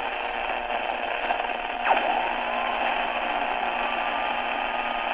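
Synthetic intro sound effect under a title animation: a steady rushing noise, with a short falling swoosh about two seconds in.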